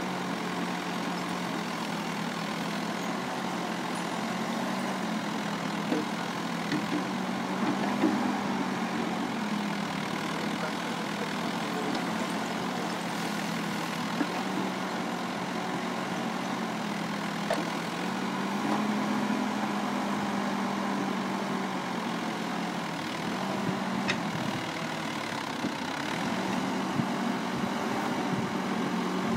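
L&T Case 851 backhoe loader's diesel engine running under working load as the backhoe digs rubble, its note rising and falling with the hydraulics. A few sharp knocks of the bucket against rubble stand out above it.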